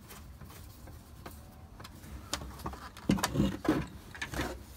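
Handling noise of a cordless circular saw on its plastic rip-cut sled: a few light clicks as a screwdriver works a screw on the sled. Then, from about three seconds in, a run of louder knocks and clunks as the saw is lifted and stood on its battery on a wooden workbench.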